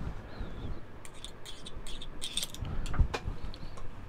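Small metal clinks and light knocks as silverware pieces and a soldering tool are handled on a steel bench block, in short clusters with a sharper knock about three seconds in.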